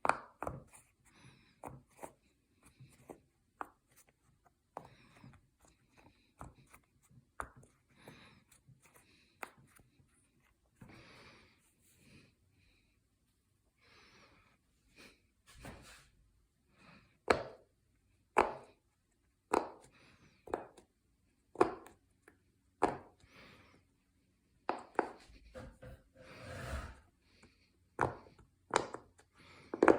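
Silicone pop-it fidget toy bubbles being pressed in, a long series of short pops, soft and irregular at first, then louder and about one a second in the second half.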